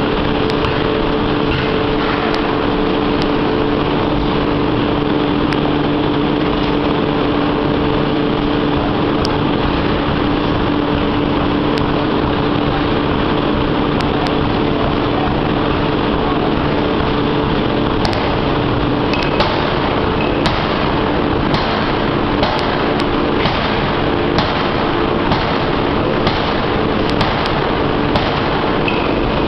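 1-ton open-die forging hammer working hot steel: a loud, steady mechanical drone with a hum, and from about the middle on, sharp knocks about once a second as the ram strikes the workpiece.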